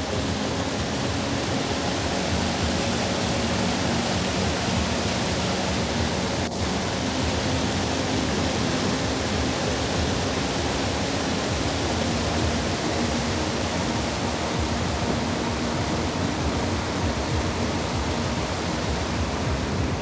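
Steady, unbroken roar of whitewater pouring over a creek waterfall close by, with one brief faint tick about six and a half seconds in.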